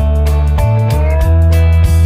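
Background music: guitar-led instrumental with a steady bass line and a sustained melody note that bends upward.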